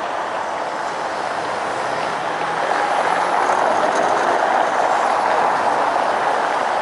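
A tram passing close by on its rails, mixed with city car traffic running over cobblestones. The sound grows louder about halfway through as the tram goes past.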